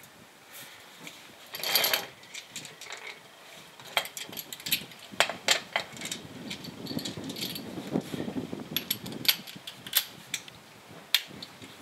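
Hand tools being handled: scattered sharp metallic clicks and clinks of a socket and extension, with a louder clatter about two seconds in.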